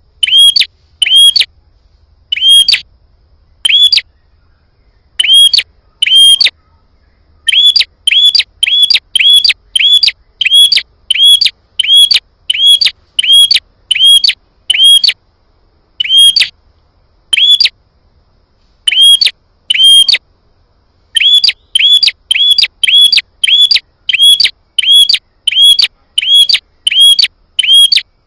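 Prenjak (prinia) calling: loud, sharp, repeated chirps, several quick notes a second, in runs broken by short pauses. This is a lure call of the kind played to provoke wild prenjak into answering.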